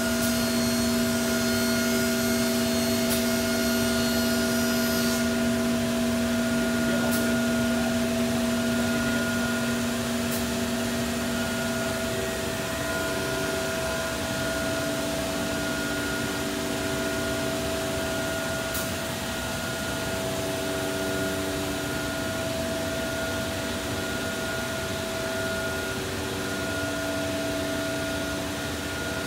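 SCM CNC router running steadily: a whirring machine hum with several steady tones over a noisy hiss. About twelve seconds in, the lowest tone drops away and the hum gets a little quieter; a few faint ticks are heard.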